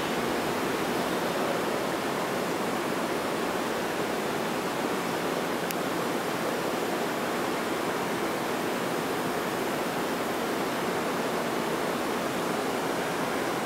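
Steady, even rushing noise of an underground subway station with no train on the platform tracks. There is a single faint click about six seconds in.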